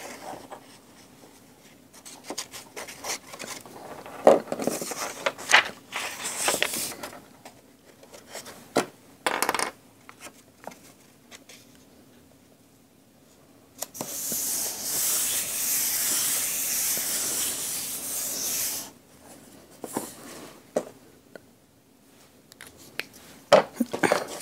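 Paper being handled at a craft table: scattered rustles and taps, then a steady scraping rub of paper lasting about five seconds, then a few more taps near the end.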